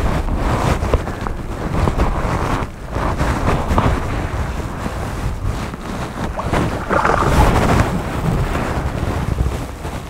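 Wind buffeting the microphone in irregular gusts over rushing, splashing river water.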